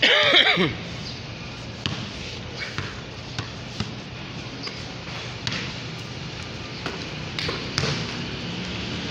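A basketball bouncing on a concrete court in scattered, irregular thuds, with a loud shout at the start.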